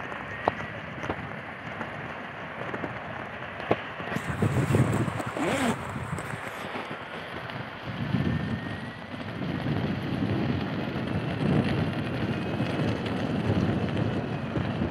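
Wind buffeting the microphone of a moving electric unicycle, in low rumbling gusts that pick up about four seconds in and again about halfway through. A faint, thin motor whine glides up and down in pitch with speed.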